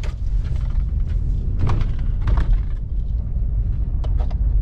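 Steady low rumble inside a car's cabin as it drives a rough, rutted dirt trail, with a few sharp clunks and rattles from the body and suspension as it jolts over bumps, near the middle and again toward the end.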